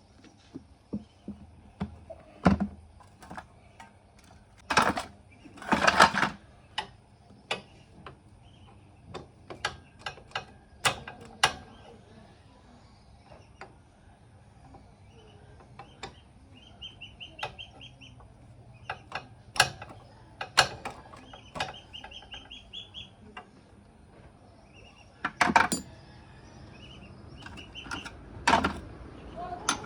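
Hand tools working on a motorcycle engine with the engine stopped: scattered metallic clicks and knocks at irregular intervals, with a few short runs of faint rapid ticking.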